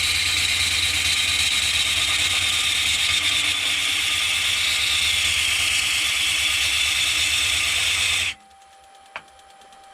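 Wood lathe spinning a poplar log while a turning tool cuts into it, roughing the blank round: a steady, rough cutting noise over the lathe's hum. It cuts off suddenly about eight seconds in, leaving only a few faint clicks.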